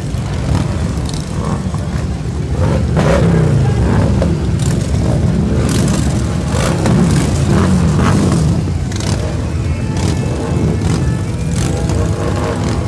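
A procession of Harley-Davidson motorcycles riding past, many V-twin engines running at once, with individual bikes' engine notes rising and falling as they rev and go by.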